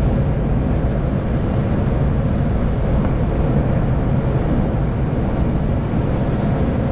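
Steady rushing airflow noise in the cockpit of an SZD-30 Pirat glider in flight, with a low rumble and no engine.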